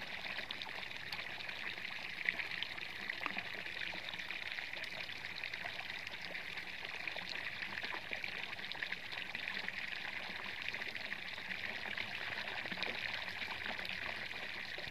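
Water pouring steadily from the open end of a white PVC pipe and splashing into a ditch below.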